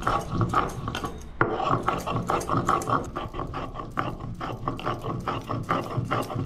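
Mustard seeds and cumin being ground to a paste on a flat stone grinding slab (sil) with a hand-held grinding stone: quick rhythmic grating strokes, about four a second. One sharper knock of stone on stone about a second and a half in.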